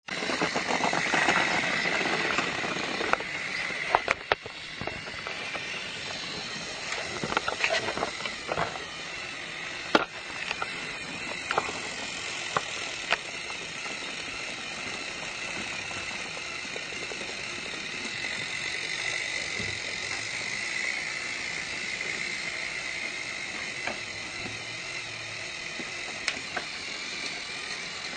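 Motorized toy train running: a steady whirring gear noise with scattered clicks and rattles, louder for the first few seconds.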